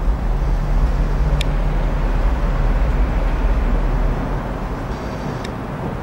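Low rumble of road traffic, easing off about four seconds in, with two faint sharp ticks, one early and one near the end.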